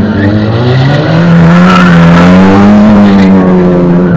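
Slalom competition car's engine revving hard under acceleration, rising in pitch about a second in, held high, then dropping near the end, with tyre squeal as the car slides around the cones.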